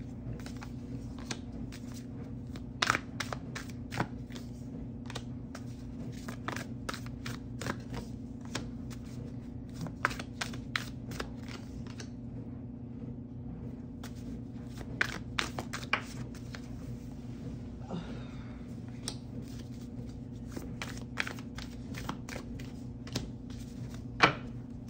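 Tarot cards being shuffled and laid out on a surface: many small, irregular clicks and flicks over a steady low hum.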